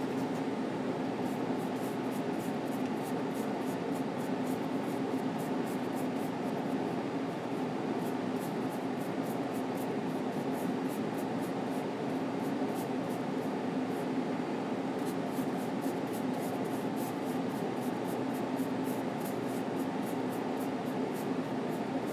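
Runs of quick, light brush strokes, about three a second, as a flat brush works oil paint on a linen panel, with short pauses between runs. A steady low hum runs underneath.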